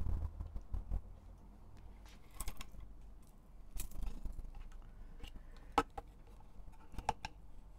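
Light handling sounds as a skein of yarn is worked onto a wooden yarn swift: scattered small clicks and knocks with some rustling, a few low thumps in the first second and a few sharper knocks near the end.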